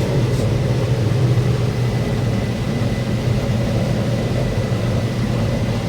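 Combine harvester's diesel engine and threshing machinery running steadily at work, a continuous low drone with a faint, thin, steady high whine.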